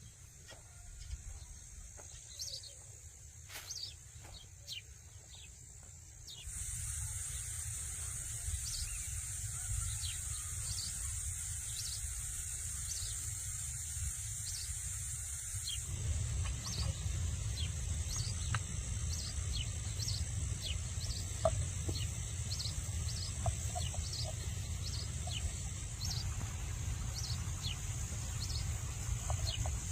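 Outdoor rural ambience: small birds chirping over and over above a low rumble. A steady high hiss comes in abruptly about six seconds in, and the background gets louder again abruptly around sixteen seconds.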